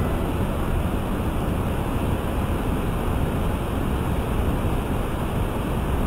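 River rapids rushing over rocks: a steady, even rush of water.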